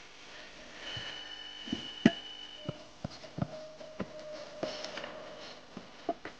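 Chinese cleaver cutting lamb on a thick round wooden chopping block: about ten irregular knocks of the blade on the wood, the loudest about two seconds in.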